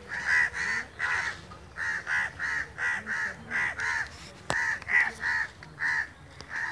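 Several crows cawing over and over in a rapid series of harsh calls, two or three a second with only short breaks: the alarm cawing of crows gathered around a dead crow.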